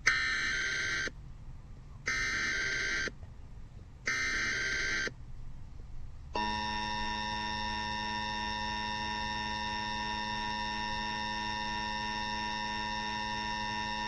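A NOAA Weather Radio receiver's speaker sounds an Emergency Alert System alert: three one-second bursts of digital header data about a second apart, then a steady warning alarm tone for about eight seconds. The alert announces a winter storm warning and wind chill advisory.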